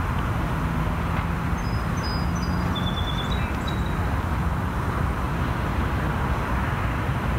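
Steady low rumble of distant road traffic across the water, with a few faint high bird chirps about two to three seconds in.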